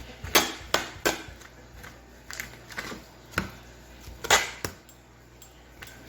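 A knife knocking and tapping against a cutting board while trimming raw chicken breast: a series of irregular sharp knocks, with the loudest about half a second in and about four seconds in.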